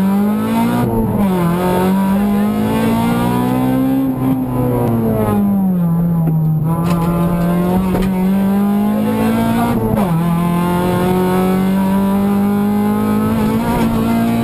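Honda Civic VTi rally car's four-cylinder engine at high revs under load, heard from inside the stripped, caged cabin. The pitch climbs, drops sharply at an upshift about a second in, climbs again, sags slowly between about four and six seconds as the revs fall, and drops at another shift near ten seconds before rising again.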